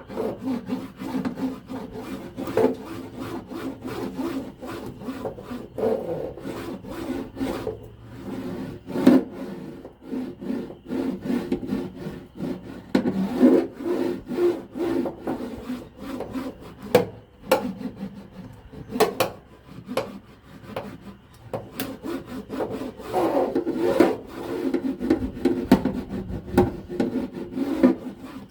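Kilmat sound-deadening mat being pressed and rubbed down onto a van's ribbed metal floor: continuous scraping and rubbing with many sharp clicks and knocks.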